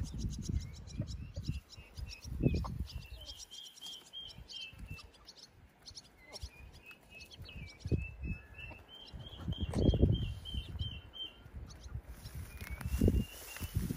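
Wind gusting on the microphone in low rumbles, the strongest about ten seconds in, over a small bird chirping in fast runs of short, even, high notes that repeat again and again.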